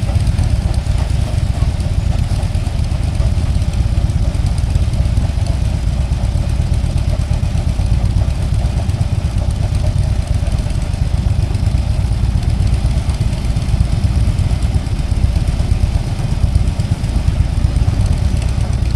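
Motorcycle engines idling: a steady low rumble.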